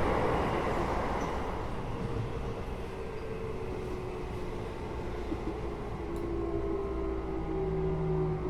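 Interior running sound of a Keio 8000 series electric train, recorded above its Hitachi GTO-VVVF main controller. Loud running noise fades over the first few seconds, then steady humming tones from the GTO-VVVF inverter and traction motors come in about halfway and grow stronger near the end.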